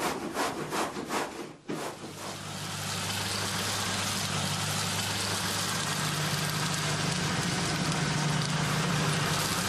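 Electric farm grain mill (feed grinder) running steadily, a low motor hum under an even grinding hiss, coming in about two seconds in.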